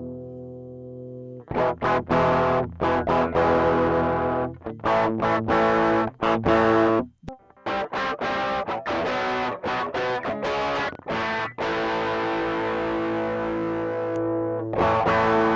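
Electric guitar played through an overdrive/distortion pedal on a multi-loop pedalboard. It plays a riff of short, choppy chords with stops between them, then lets chords ring out near the end.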